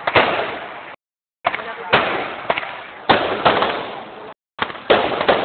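Fireworks going off: four loud bangs about a second or two apart, each trailing off in fading crackle. The sound cuts out completely twice for a moment.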